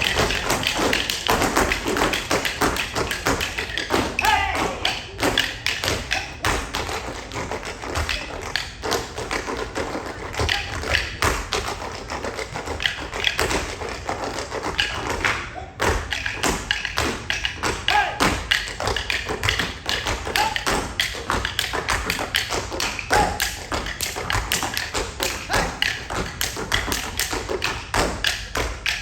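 Tap dancers' shoes beating out fast rhythms, mixed with heavier stomps and thuds, in a percussive tap-and-stomp routine. It breaks off for a moment just past halfway, then carries on.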